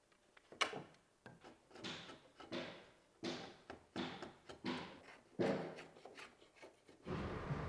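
A long hand chisel paring timber, about a dozen short scraping strokes in an uneven rhythm, each cutting off a shaving. Near the end a steady machine noise starts.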